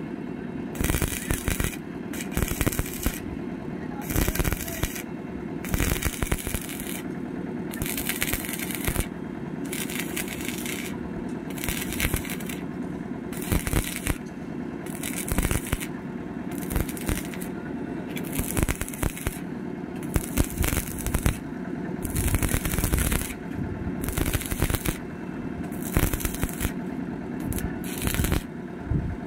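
Stick (manual metal arc) welding on a square steel tube: the arc crackles and sizzles, its hiss cutting out briefly every second or two, over a steady low hum.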